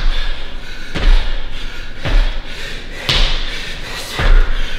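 Feet landing on a gym floor from repeated squat jumps and lunge jumps, about one heavy thud a second, five in all.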